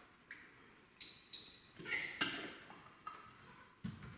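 Cutlery clinking and tapping against plates and bowls as salad is served: about half a dozen light clinks spread over a few seconds, with a soft low knock near the end.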